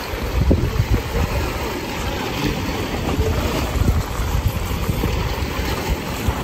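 Wind buffeting the microphone in gusts, a low rumble over the rush of choppy, fast-moving inlet water.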